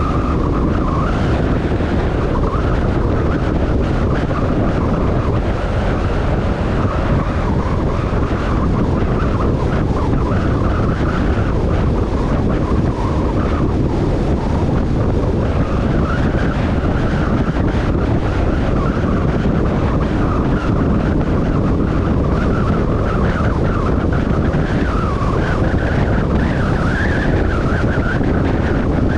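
A motorcycle riding steadily at road speed: engine and road noise under a constant rush of wind over the microphone.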